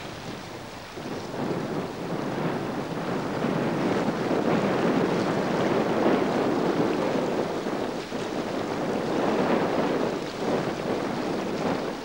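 Wind buffeting the camcorder microphone: a rushing noise that rises about a second in, then swells and eases in gusts.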